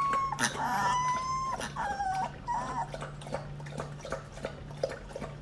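Husky-type puppy howling in long, high, drawn-out cries. Two long howls come in the first second and a half, then shorter ones that drop in pitch, and it quiets after about three seconds.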